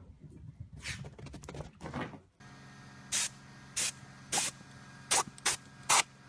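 Garden hose spray nozzle squirting water in short bursts, about seven of them roughly half a second apart, at a boxer's mouth.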